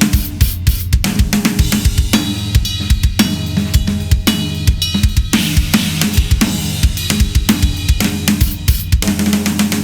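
Full drum kit played in a steady groove: kick drum, cymbals and hi-hat around a Ludwig Raw Brass 14x6.5 brass snare drum. The snare is fitted with an Evans Onyx batter head, an Evans 300 snare-side head and Puresound snare wires, and is tuned fairly tight. The playing stops right at the end.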